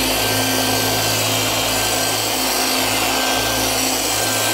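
Rupes random-orbital polisher running steadily with its pad pressed onto a car's painted panel, working only the leftover polish on the paint rather than fresh product.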